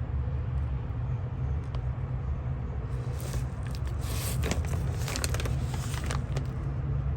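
Fuse box cover being handled, with scraping and clicking in the second half, over a steady low background hum.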